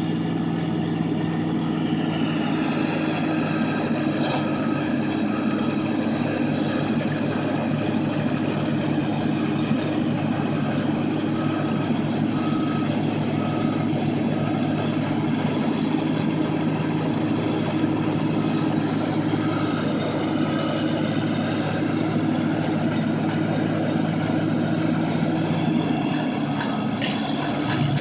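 A large vehicle engine running at a steady, constant speed, a continuous droning note that changes only near the end.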